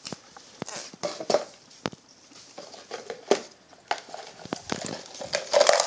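Scattered light clicks and taps, with some clatter, from a clear plastic tub turned over a live crab on a tile floor. The taps grow busier and louder near the end.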